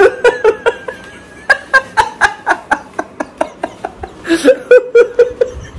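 People laughing in quick repeated bursts, with a longer run of laughs starting about four seconds in.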